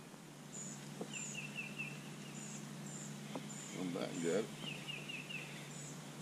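Birds calling in the background: two runs of four quick chirps, with thinner high notes scattered throughout, over a steady low hum and a few faint clicks.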